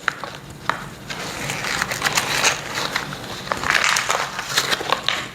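Plastic packaging and small parts rustling and crinkling while being handled and rummaged through, with scattered small clicks and knocks.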